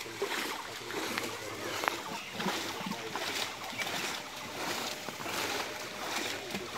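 Pond water splashing and churning as a seine net full of fish is drawn tight, with the fish thrashing at the surface in short, irregular splashes.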